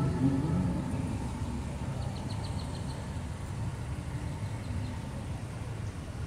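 Steady low rumble of street traffic, with a short run of faint quick ticks about two seconds in.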